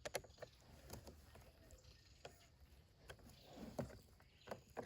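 Faint, irregular clicks and taps of small screws, nuts and a hand screwdriver being worked on the compost tumbler's plastic panels.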